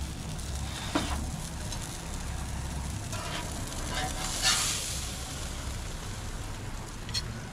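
Grouper fillet sizzling over the hissing burners of a gas grill, with a slotted metal spatula scraping on the grill grates several times; the loudest scrape comes about halfway, as the fillet is lifted off.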